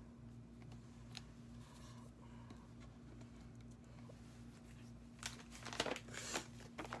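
Soft handling of paper embellishments with a few faint taps over a steady low hum. About five seconds in, louder rustling and crinkling of a paper and plastic sticker sheet being picked up.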